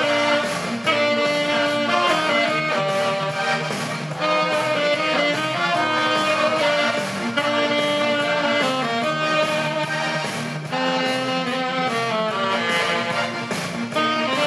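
Alto saxophone playing a melody of held and moving notes over recorded backing music with a steady bass line.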